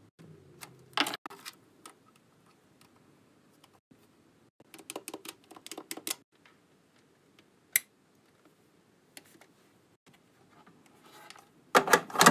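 Hard plastic clicks and clacks from a Hello Kitty corded room phone being unpacked and handled: a quick run of keypad button clicks around five to six seconds in, and a burst of louder clacks near the end as the handset is set down.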